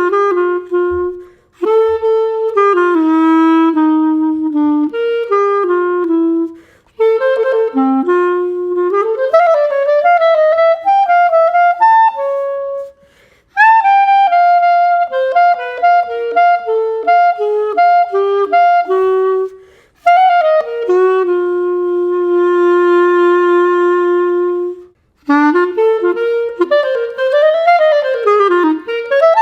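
Budget hot-pink plastic clarinet, fitted with a professional mouthpiece, ligature and reed, played solo: melodic phrases broken by short pauses for breath, with upward smears in pitch and one long held note about three quarters of the way through.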